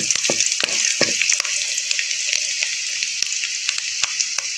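Garlic, curry leaves and chilli powder frying in hot oil in a kadhai as a tadka while the garlic browns: a steady sizzle with many small crackles and pops. A wooden spoon stirs through it in the first second or so.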